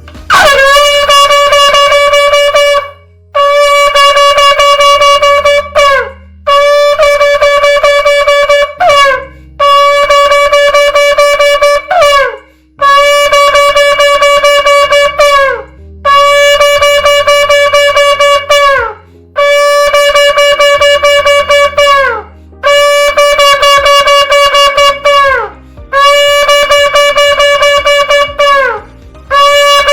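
A shofar blown in about ten long, steady blasts in a row, each about two and a half seconds, with a short breath between them. Each blast ends with its pitch sliding down.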